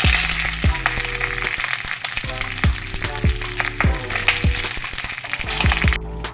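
Food sizzling in a pan: a dense, steady hiss that cuts off suddenly near the end, over background music with a regular beat of pitch-dropping drum hits.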